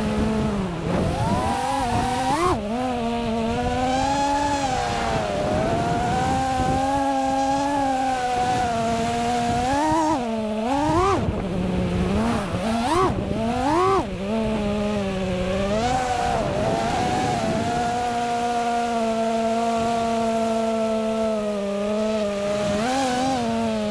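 FPV quadcopter's brushless motors whining, the pitch swooping up and down with throttle during freestyle flying. A cluster of quick sharp swoops comes about halfway through, and the whine then holds a steadier pitch.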